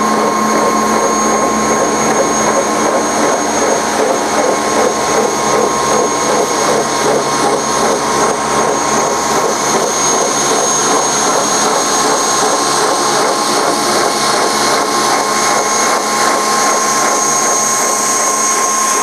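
Forrest Manufacturing Model 2054 vertical-blade bandsaw, blade running at about 3,000 feet per minute, cutting steadily through a large urethane block as the traveling table is pushed through, with a steady high whine over the cutting noise.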